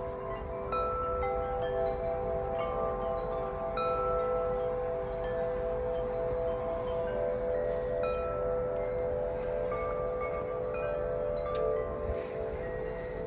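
Several tuned metal wind chimes ringing in the wind: overlapping, long-sustaining tones with fresh higher notes struck every second or so. Wind rumbles low on the microphone underneath.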